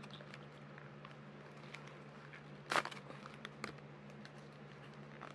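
Small cardboard toy box being opened by hand: scattered light crackles and rustles of card and plastic packing, with one louder rip near the middle, over a low steady hum.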